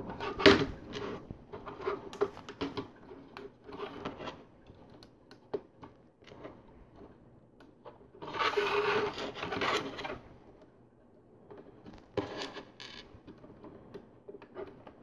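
LEGO plastic pieces being handled and pressed onto an assembly: small scattered clicks and taps, with about two seconds of scraping and rubbing roughly eight seconds in.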